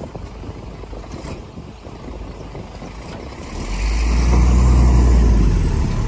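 Heavy diesel engine of earthmoving machinery running, swelling much louder for about two seconds in the second half, then easing off.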